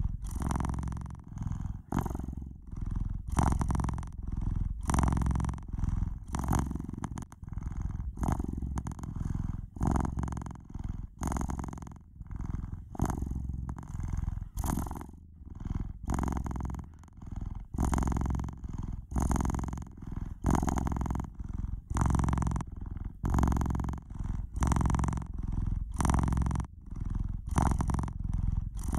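Domestic cat purring steadily, the low rumble pulsing in an even rhythm about once a second.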